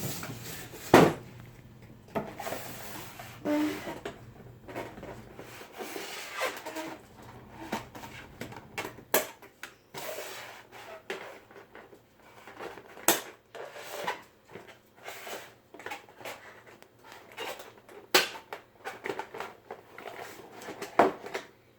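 Nerf blaster packaging being opened by hand: irregular rustling and scraping of cardboard and plastic, with scattered sharp knocks and clicks as the box is handled and the blaster is freed.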